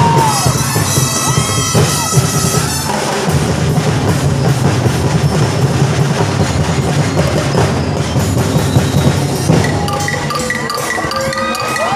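Live percussion band of big bass drums and other drums playing a steady driving rhythm for a street dance, with brief children's shouts at the very start.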